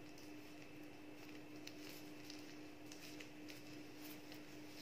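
Faint crinkling of thin plastic food-prep gloves and soft peeling as imitation crab sticks are pulled apart by hand, a handful of light ticks over a steady low hum.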